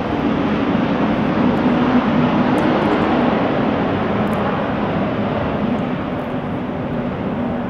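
Jet aircraft engine noise, a steady sound that swells about two seconds in and then slowly fades.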